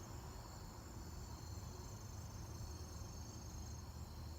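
Insect chorus: a steady, high, faintly pulsing trill over a low rumble.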